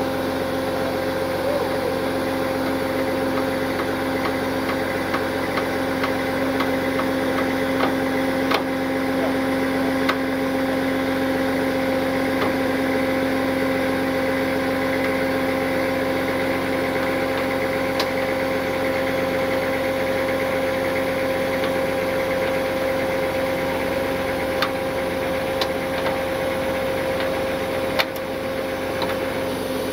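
Tow truck engine running steadily with a constant whine, powering the winch while a car is pulled out of a ditch. A few sharp clicks stand out over it.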